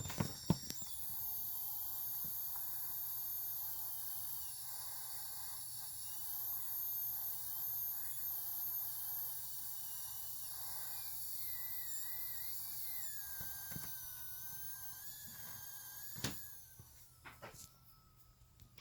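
ASUS ROG PG279Q gaming monitor giving off a steady high-pitched hiss with faint wavering whine tones, with its speakers disabled and the PC off. A few light clicks sound, and the hiss dies away near the end.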